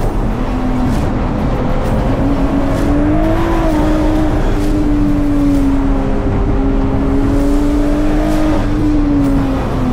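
Turbocharged BMW S54 inline-six of an E46 M3 race car running hard at high revs. The pitch holds fairly steady, drifting slightly up and down.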